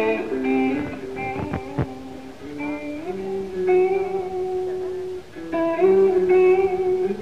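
Solo electric guitar, recorded live, playing a slow modal melody of held notes over a ringing low drone note. Two sharp percussive string hits come about one and a half seconds in.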